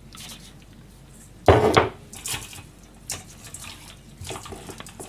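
Fish being salted by hand in a stainless steel bowl: one loud knock about a second and a half in, then a run of light clinks and rubbing as the salt is worked into the fish.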